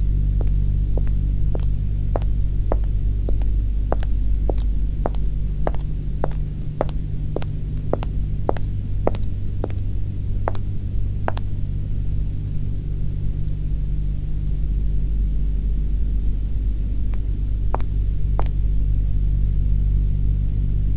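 High-heeled footsteps clicking on a hard floor, about two steps a second, over a steady low droning hum. About eleven seconds in the steady steps stop, leaving a few scattered clicks.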